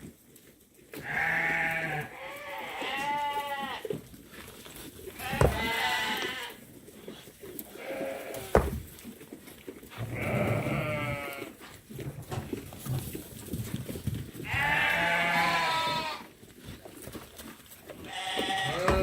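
Sheep bleating repeatedly, several wavering calls about a second long every few seconds, with a couple of sharp knocks in between.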